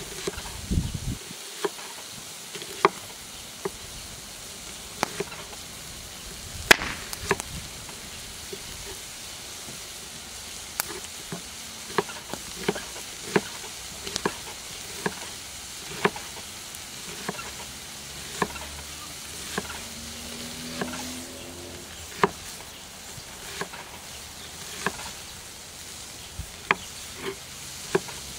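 Kitchen knife slicing an onion on a wooden cutting board: a sharp knock each time the blade comes down on the board, irregular, about one a second.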